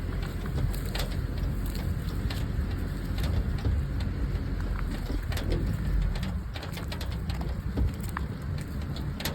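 Wind buffeting the microphone: a steady low rumble with scattered light clicks and crackles.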